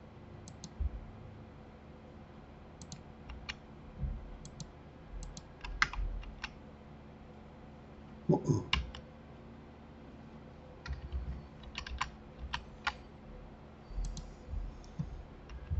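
Computer keyboard keys and mouse buttons clicking now and then, in small irregular clusters, as shortcuts are pressed and vertices are selected and moved. A brief louder low sound comes about eight seconds in.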